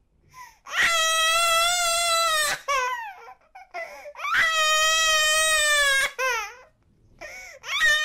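8-month-old baby crying: two long, high wails of about two seconds each, with short falling sobs and catching breaths between them, and a third wail starting at the very end.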